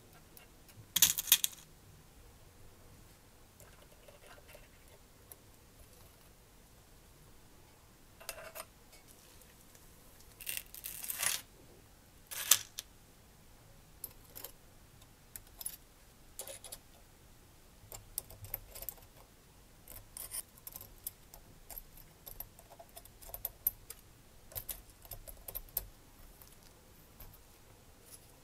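Small metal parts and a hex key clicking and clinking against the aluminium block and crankshaft of a miniature four-cylinder engine model during assembly. The clinks come in scattered clusters, the loudest about a second in and around the middle, with many lighter ticks later on.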